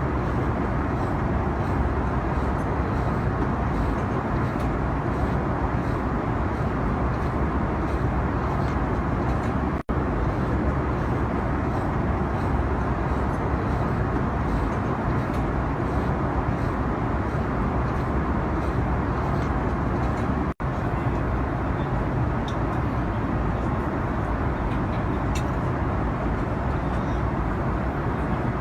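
Steady rumbling noise of a moving road vehicle, even throughout, with two brief dropouts about ten and twenty seconds in.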